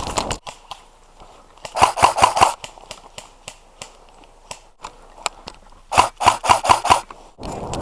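Airsoft electric rifle, a G&G M14 EBR Short, firing two quick strings of about five or six shots each, roughly four seconds apart, each shot a sharp crack with the gearbox cycling. Scattered fainter single shots sound between the strings.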